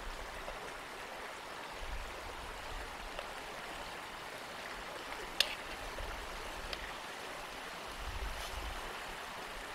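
Shallow river flowing over stones, a steady rush of water. A sharp click sounds about halfway through, with a few fainter ticks, and now and then a low rumble of wind on the microphone.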